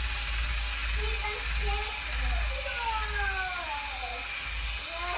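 Cordless drill running steadily with a scrubbing-pad attachment spinning against a wet glass shower wall, scrubbing off limescale.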